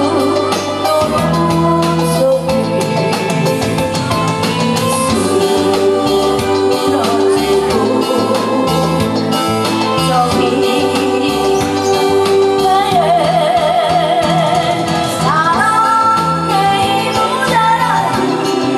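A woman sings into a microphone over amplified backing music with a steady beat. She holds wavering, vibrato notes in the second half.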